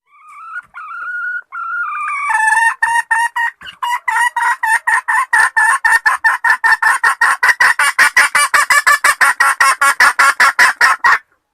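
Domestic hen calling: a couple of seconds of drawn-out notes, then a long run of short, quick clucks that speeds up to about five a second and stops abruptly.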